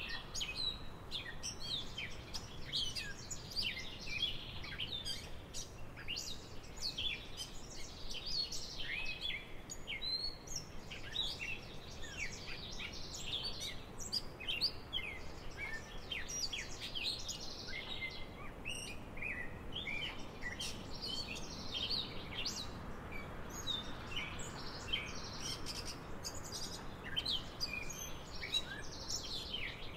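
Small birds chirping continuously, many short, quick, overlapping chirps.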